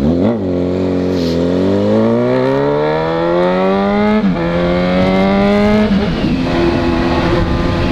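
Honda CB1000R's inline-four engine accelerating through the gears: the pitch climbs steadily for a few seconds, drops sharply at a gear change about four seconds in, climbs again, then settles to a steady cruise near the end.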